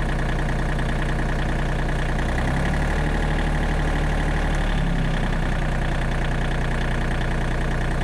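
John Deere 3025E compact tractor's three-cylinder diesel engine running at a steady idle of about 1,200 rpm. About two and a half seconds in it revs up slightly, to about 1,400 rpm, and it settles back to idle about two and a half seconds later.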